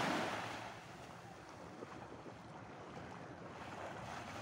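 A small wave breaking and washing up the sand, its hiss loudest at the start and fading over about a second, then steady gentle surf wash with wind on the microphone.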